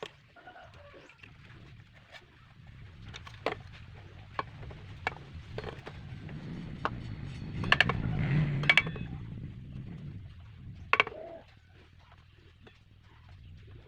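Scattered light clicks and taps, with a low rumble that swells through the middle and fades again.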